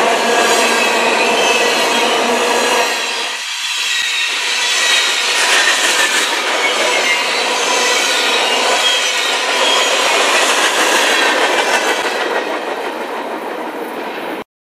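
Freight train covered hopper cars rolling past, steel wheels rumbling on the rails with a steady high squeal from the wheels. The sound eases off somewhat near the end and then cuts off suddenly.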